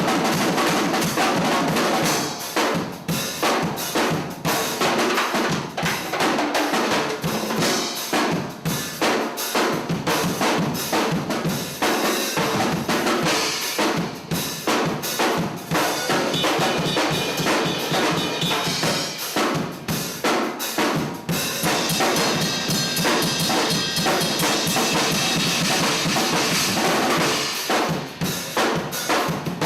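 Drum kit played in a continuous groove of dense bass drum and snare hits, with a stretch of sustained cymbal wash about three quarters of the way through.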